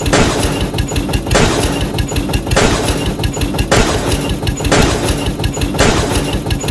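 Tractor engine chugging steadily, with a noisy rushing swell that repeats about once a second.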